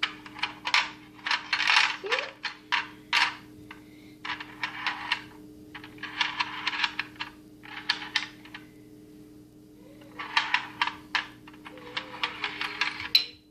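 Plastic vehicle pieces of a Rush Hour Traffic Jam Jr. puzzle being slid and clicked across the plastic grid board, in clusters of rapid clicks and rattles with short pauses between, over a steady low hum.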